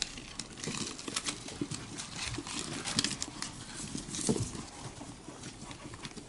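Group of golden hamsters feeding together on newspaper: a busy run of small irregular clicks and rustles from paws scrabbling over the paper and food being nibbled at a shared tray.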